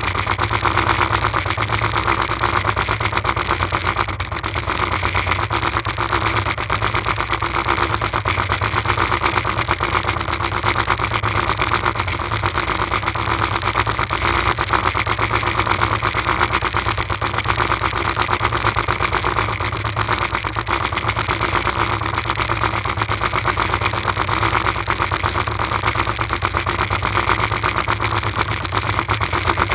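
Small fishing boat's motor running steadily under way at speed, close to the microphone, with a fast, even beat.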